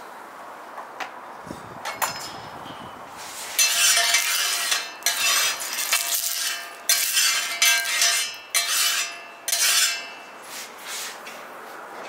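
Metal spatula scraping across a hot Snow Peak grill plate over charcoal in a series of back-and-forth strokes, spreading cooking oil. A few light clinks come first.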